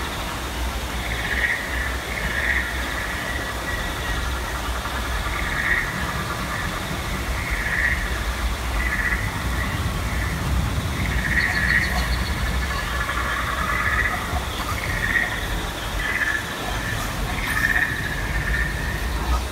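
Frog-like croaking calls repeating irregularly, roughly once a second, over the steady rush of a stream and small waterfalls.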